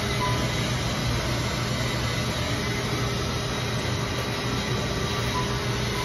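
Self-service key-duplicating kiosk running while it cuts a copy of a key: a steady mechanical whirr with an even hum underneath.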